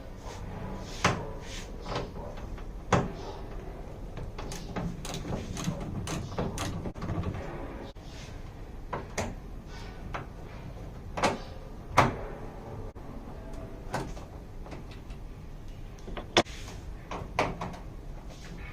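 A series of irregular sharp clicks and knocks, some much louder than others, over a steady low background rumble.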